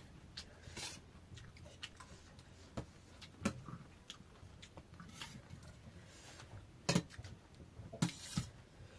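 Faint eating sounds: scattered small clicks and taps, as of cutlery or fingers against a dish, a few followed by a short soft rustle.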